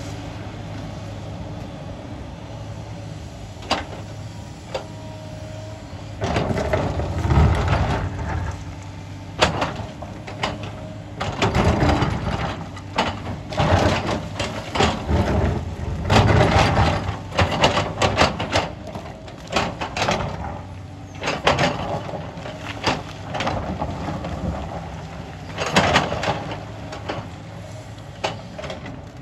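Sany crawler excavator's diesel engine running steadily while its bucket digs and scrapes through loose broken rock. From about six seconds in come repeated loud clattering and scraping of stones, in irregular bursts.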